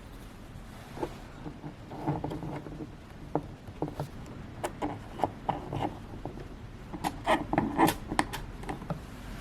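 Scattered clicks and knocks of objects being handled, with a quick cluster of clicks about seven to eight seconds in.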